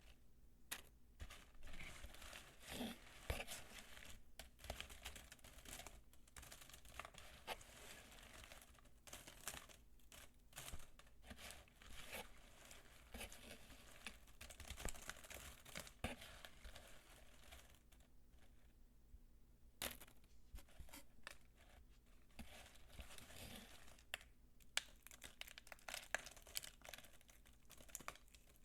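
Soap peelings being crumbled and crunched by hand: a quiet, continuous, irregular crackling and crinkling, with a couple of short pauses.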